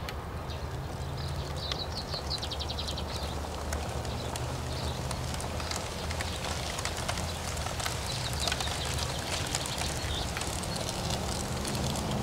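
Steady outdoor background noise with a faint low hum and scattered light crackles, and a quick run of rapid ticks about two seconds in.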